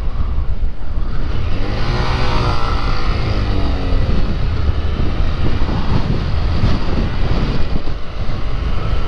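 Honda Grom's small single-cylinder engine running while riding, its pitch dipping and rising between about two and four seconds in, under heavy wind rumble on the helmet-camera mic.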